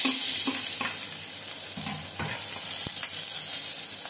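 Chopped onions sizzling in hot oil in a steel kadhai, stirred with a steel spoon that scrapes and taps lightly against the pan. The sizzle is strongest at first and eases slightly as the onions settle into the oil.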